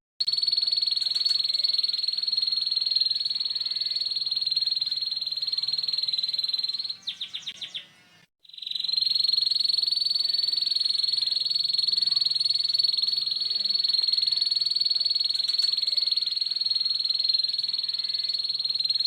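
Domestic canary singing a harsh, rapid 'ngeriwik' trill held at one high pitch. About seven seconds in, the trill gives way to a short run of separate falling notes, then stops briefly and starts again.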